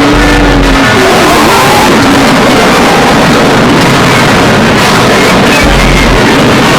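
Loud, heavily distorted anime soundtrack dominated by music, with a held note in the first second followed by wavering glides in pitch.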